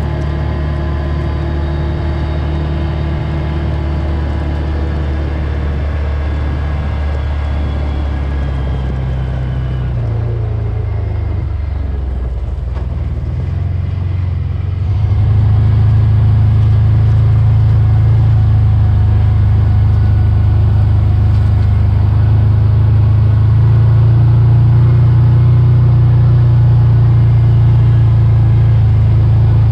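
A vehicle engine running steadily with a low hum. Its pitch dips about ten to fourteen seconds in, then it runs a little louder and steadier.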